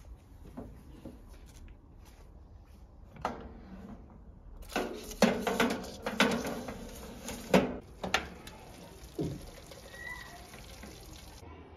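Metal clatter and a run of sharp knocks as a pizza on baking paper is put into a Moulinex countertop toaster oven and its wire rack and door are handled. The knocks bunch together in the middle, over a steady hiss.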